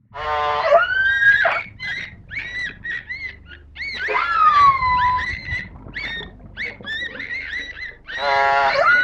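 Whale calls: a rapid series of short whistles and chirps with buzzy pulsed calls among them, and a long whistle gliding down in pitch about four seconds in. The same sequence starts over near the end.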